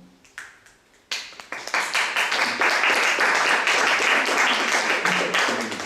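Audience applauding: a few scattered claps, then clapping breaks out about a second in and dies down near the end.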